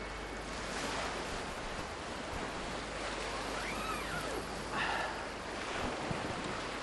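Small waves washing on a shore, a steady rushing surf sound with some wind. A faint short whistle-like sound rises and falls about four seconds in.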